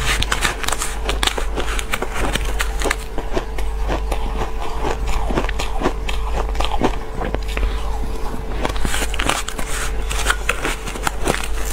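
Shaved ice crunching and crackling as it is bitten and chewed in big mouthfuls, with a metal spoon scraping and clinking in a plastic cup between bites. Dense sharp crackles throughout, over a steady low hum.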